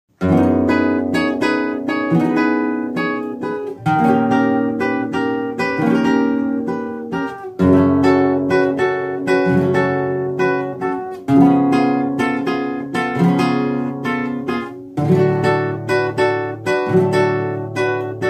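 Nylon-string flamenco guitar strumming a rumba-style chord accompaniment in a quick, even rhythm. It starts from silence and changes chord about every four seconds, through chords such as E minor and C/G.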